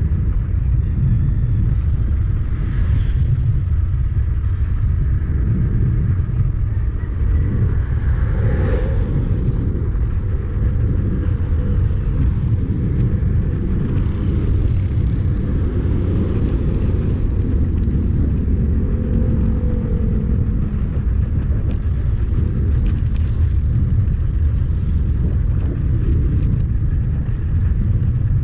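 Wind buffeting the camera microphone of a bicycle coasting fast downhill: a steady, heavy low rumble mixed with road noise, with a brief swell about eight seconds in.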